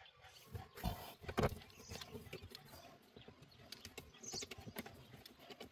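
Scattered small clicks and knocks of hands working a wing-nut terminal adapter on a car battery post, with two louder knocks about a second in.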